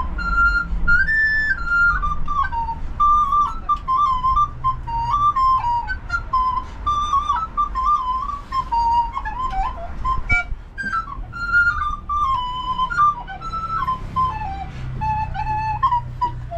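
Music: a quick, stepping flute-like melody over a steady low rumble.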